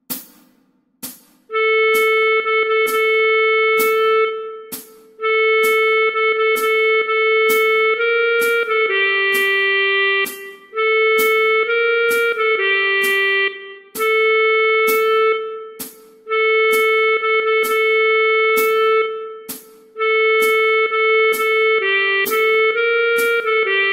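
A clarinet playing a slow melody in long held notes that move in small steps, over a metronome click at 65 beats a minute. For the first second and a half only the clicks sound, as a count-in; then the melody enters in phrases with short breaks.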